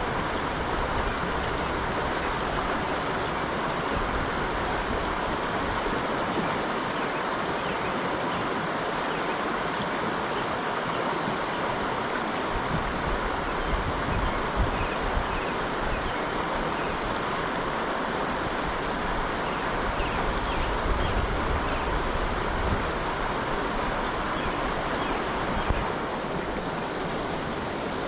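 Steady rush of a small creek's flowing water, with some irregular low rumbles on the microphone.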